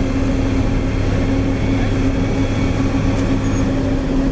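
Diesel engine of a heavy road-construction machine running steadily, a constant loud drone.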